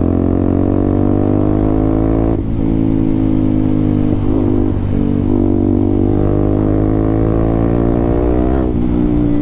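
KTM RC 200's single-cylinder engine running through an aftermarket SC Project exhaust while riding in a high gear, loud and steady. Its pitch sags slowly, dips briefly about two and a half seconds in, wavers near the middle and shifts again near the end as the throttle changes.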